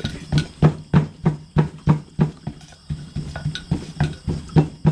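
Wooden pestle pounding in a wooden mortar, a steady rhythm of about three thuds a second, a little softer in the middle. It is grinding soaked glutinous rice into a paste (khao buea) used to thicken soup.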